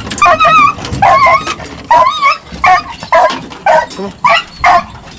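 Pack of deer hounds in a pickup's dog box barking and yelping in a quick string of about eight calls. The dogs are excited, about to be turned loose for a hunt.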